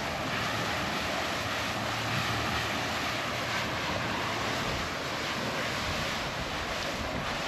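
Steady rushing noise of wind and water around a small boat at sea.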